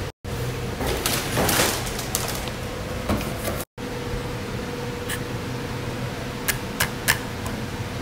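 Handling sounds over a steady hum: a rustle in the first couple of seconds, then a few sharp plastic clicks later on as a clear plastic CPU clamshell is handled. The sound drops out twice for an instant at edits.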